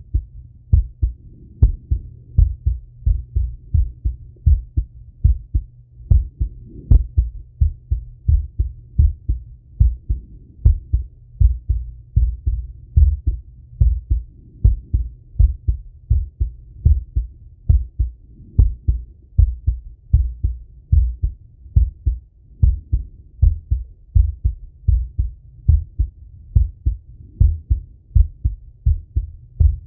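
A man's heartbeat heard through a Littmann stethoscope on his chest, beating in a steady, even rhythm as his heart recovers after a set of exercise.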